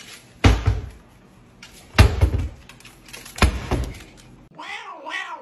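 Wooden kitchen cabinet doors banging shut three times, about a second and a half apart, as a corgi pushes them closed, each bang followed by a short rattle. A brief wavering vocal sound comes near the end.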